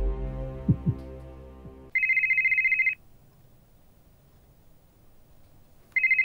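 A low droning hum with paired heartbeat-like thumps fades out over the first two seconds. Then a phone rings with a high, rapidly trilling electronic tone: two one-second rings about four seconds apart.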